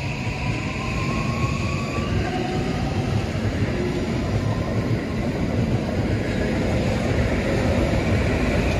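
Keikyu electric train passing at speed, a steady loud rumble of wheels on rail. A faint rising whine runs through the first two seconds.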